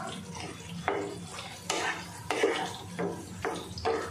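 A spatula stirring a thick smoked-fish and tomato curry in a nonstick wok, scraping and knocking against the pan about twice a second.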